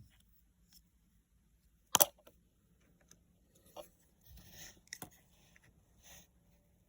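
Scattered clicks and rustling handling noises. One sharp click about two seconds in is the loudest, with smaller clicks and a brief rustle later. No fan is heard running.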